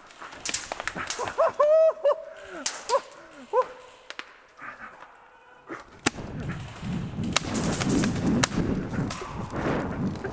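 Sharp airsoft gun shots cracking in the first few seconds, mixed with short pitched yelps or shouts. From about six seconds, hurried footsteps and gear rustling as a player runs, with a few more shots.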